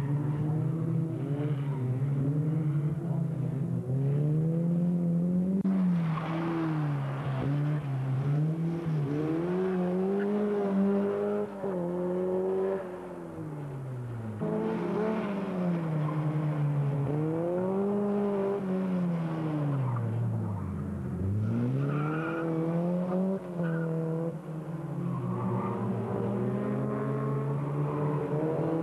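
Racing car engine driven hard, revving up and down over and over, its pitch climbing and falling every few seconds as it accelerates and backs off through a slalom course.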